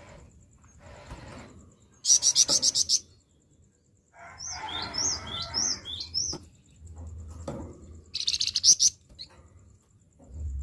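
A songbird singing a harsh, rasping song: a rapid burst of about nine clipped notes about two seconds in, then a run of five short high falling notes, then another quick harsh burst near the end.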